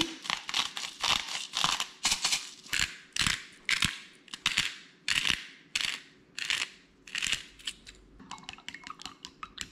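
Hand-twisted spice grinder grinding seasoning, black pepper among it, over a bowl of raw eggs: short crunchy strokes about three a second, turning into quicker, lighter clicks near the end.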